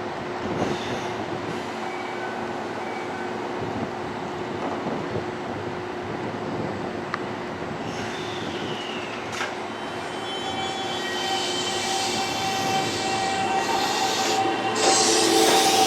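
A Keisei Line electric train running at a station, its rail noise growing louder over the second half with several steady high whining tones.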